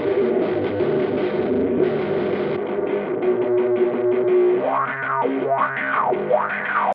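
Distorted electric guitar played through BIAS FX amp-and-effects software. A little over halfway through, a sweeping filter effect rises and falls in pitch three times. The sound stops abruptly at the end.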